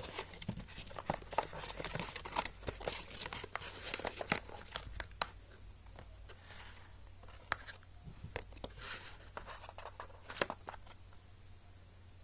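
Cardboard phone box, paper leaflet and plastic accessories being handled during unboxing: rustling and crinkling with sharp taps and clicks, busy for about five seconds and then sparser, with a few single clicks near the end.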